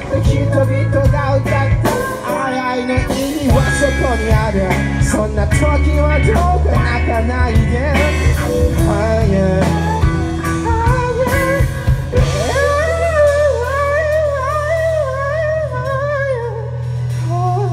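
Rock band playing live: electric guitar, bass and drum kit. About twelve seconds in the drums stop, leaving a held bass note under a wavering, sliding lead line.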